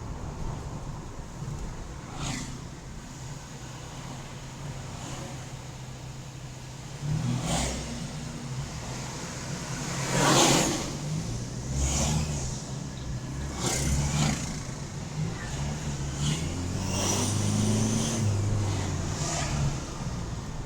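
Toyota Hilux turbocharged engine, fitted with an aftermarket air filter, pulling and changing revs several times. Over the engine note the turbo whistles, with several short hissing whooshes as the throttle comes on and off, and a wavering high whistle near the end.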